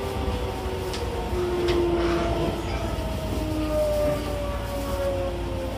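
Shin-Keisei 8800 series electric train heard from inside the car: the GTO-thyristor VVVF inverter and traction motors whine in several tones that slide slowly downward as the train slows, over a steady low rumble of the running gear.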